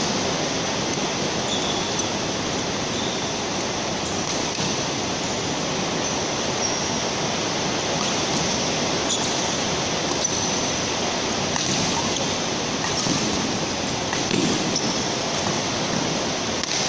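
Steady rushing background noise, with a few faint, short high squeaks of shoes on the court floor scattered through it.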